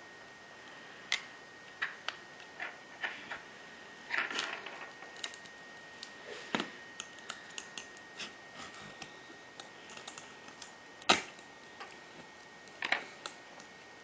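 A pry tool working the screen assembly off an iPhone 3GS: irregular small clicks and scrapes, with a scraping flurry about four seconds in and a sharp click about eleven seconds in.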